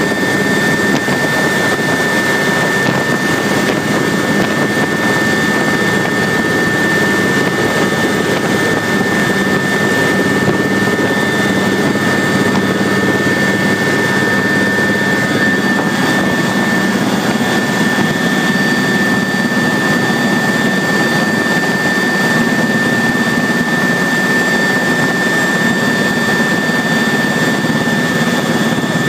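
Military aircraft jet engine running steadily: an even rushing noise with a constant high whine on top, holding the same level throughout.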